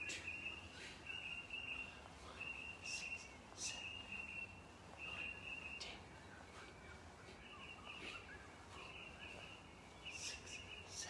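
Faint high-pitched chirping: a steady trill broken into short bursts of about half a second, repeated a dozen or so times, with a few soft clicks.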